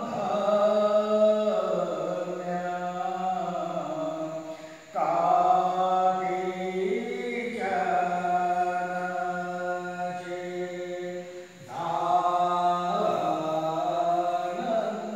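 Slow Hindu aarti chant sung in long held notes over a steady low tone. It comes in three long phrases, with short breaks about five and about twelve seconds in.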